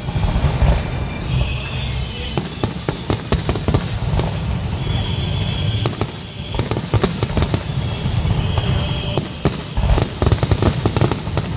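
Aerial fireworks shells bursting, many bangs and crackles in quick succession over a continuous low rumble.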